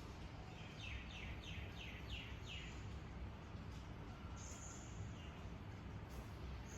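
Budgie chirping faintly: a quick run of about six short falling chirps, then a single higher call a couple of seconds later, over a steady low background noise.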